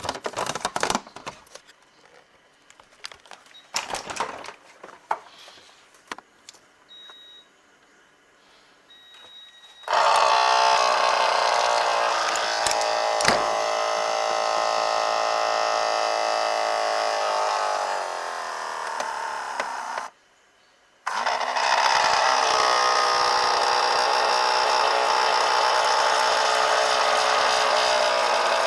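Refrigerator's ice-making compartment giving off a loud, steady mechanical buzzing whir, the abnormal noise of an aging fridge. It starts about a third of the way in after some light clicks and knocks and two short beeps, dips slightly, cuts out for about a second, then starts again.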